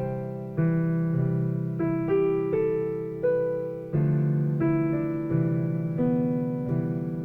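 Piano music: chords struck at an unhurried, even pace, a new one about every two-thirds of a second, each dying away before the next.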